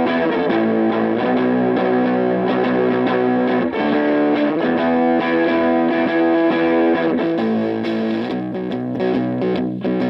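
Fender Jazzmaster electric guitar, middle pickup position, played through a Bookworm Effects Seths Fuzz pedal into a Silvertone 1472 amp. Gritty, heavy fuzz chords are each held for a few seconds, with chord changes near the start and about 4, 7 and 8 seconds in.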